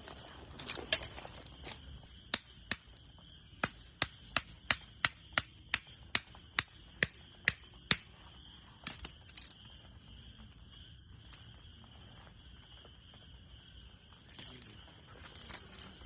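A run of sharp knocks, about three a second, for several seconds, then stopping, over a faint steady high-pitched hum.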